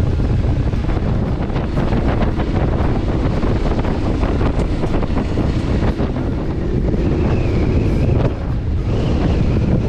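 Adventure motorcycle riding on a dirt road: the engine runs steadily under heavy wind buffeting on the camera microphone, with scattered short knocks throughout.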